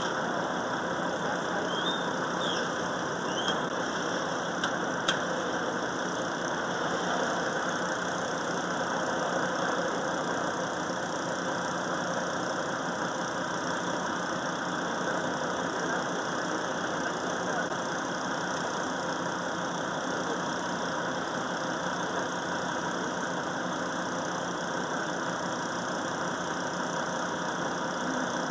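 A motor engine idling steadily, with a single sharp click about five seconds in.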